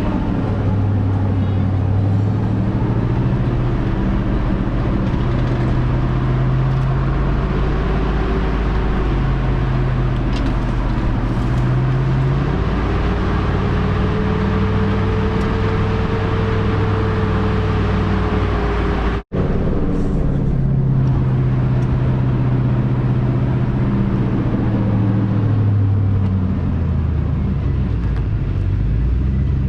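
2001 GMC Sierra 2500HD pickup's engine running under load as it crawls a jeep trail, its revs rising and falling slowly, with tyre and road noise. The sound cuts out for a split second about two-thirds of the way through.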